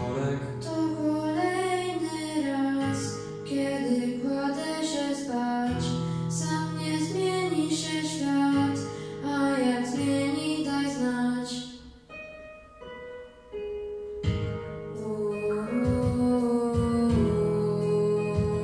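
Two boys singing a duet over a backing track of steady chords. About two-thirds of the way through, the singing pauses and the music drops back briefly, then the voices come in again.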